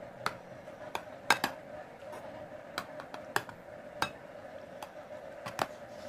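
Metal ladle clinking against a foil tray and a metal loaf pan as tomato-meat sauce is scooped and spread, about a dozen sharp clinks at irregular intervals over a faint steady hum.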